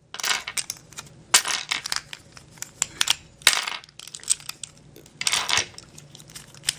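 Plastic pieces of a Maru 5x5 puzzle cube clicking and clattering as its layers are twisted and pieces are pulled out, in several short spells of rattling between sharp single clicks.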